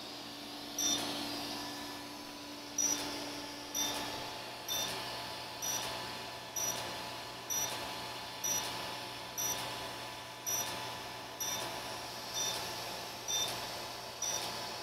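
CO2RE fractional CO2 laser handpiece firing pulse after pulse during facial skin resurfacing. Each pulse gives a short high beep with a brief hiss that fades, about once a second, over a steady machine hum.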